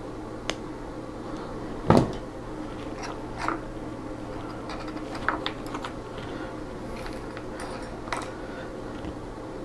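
Hobby side cutters snipping through a small plastic miniature part: one sharp, loud snip about two seconds in, followed by a few fainter clicks and taps as the pieces and tools are handled.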